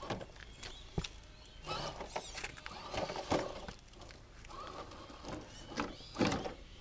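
RC rock crawler's 35-turn brushed motor and geartrain whirring in short bursts as it crawls over boulders, with its tyres and chassis scraping and knocking on the rock.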